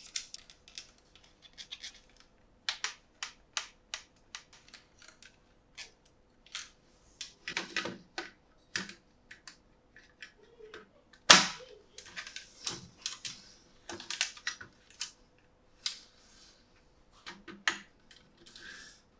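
Toy packaging and a plastic toy truck being handled: irregular sharp clicks and taps with a few short rustles, and one louder knock about eleven seconds in.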